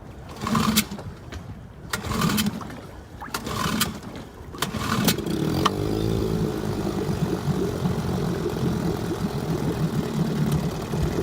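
Small engine being cranked in four short attempts about a second apart; it catches about five seconds in, its pitch sweeps briefly, and it then runs steadily.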